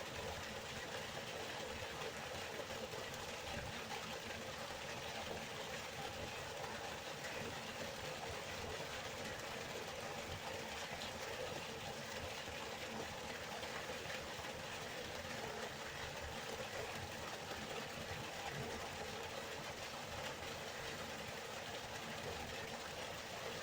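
River water flowing: a steady, even rushing with no breaks.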